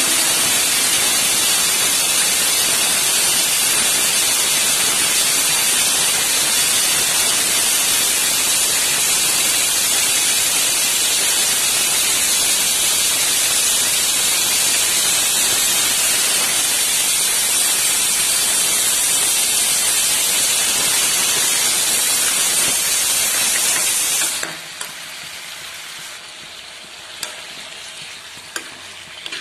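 Chopped radish leaves and potatoes sizzling in a frying pan while being stirred with a steel ladle: a loud, steady frying hiss. About 24 seconds in it drops off suddenly to a quieter sizzle with a few clicks of the ladle against the pan.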